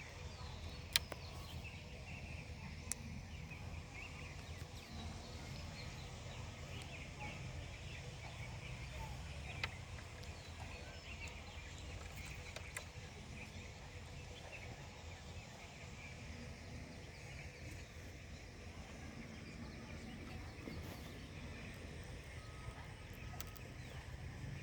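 Steady low outdoor background rumble with faint scattered bird chirps and three sharp clicks.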